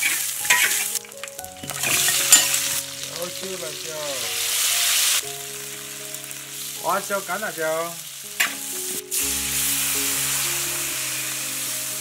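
Food sizzling in a large iron wok as sliced pork is stir-fried until its fat runs, with a spatula scraping and stirring; the sizzle comes in patches that change abruptly. Soft background music with held notes plays underneath.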